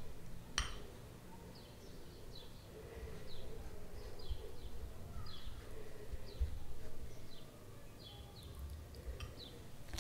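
Metal spoon stirring a damp powder paste in a ceramic bowl, scraping against the bowl, with short high squeaky chirps about twice a second and a click about half a second in.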